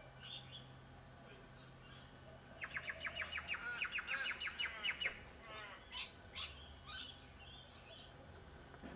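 Birds chirping: a fast run of high chirps for about two and a half seconds, then several separate chirps.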